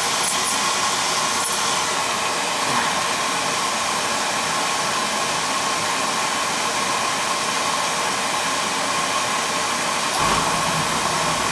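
Beckett oil burner's motor and blower running with a steady hiss and a thin whine; about ten seconds in, a low rumble joins as the burner lights off. It fires again now that its stripped motor-to-pump coupling has been fixed.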